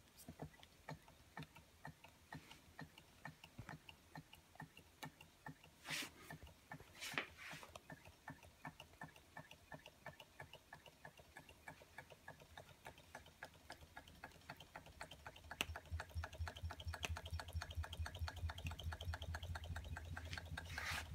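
Roland Reichelt 'Adler' Stirling (hot-air) model engine running after a hand spin of its flywheel, making a faint, even ticking that quickens as the engine picks up speed. There are two brief rustles about a third of the way in, and a low hum with louder ticks joins about three quarters of the way in.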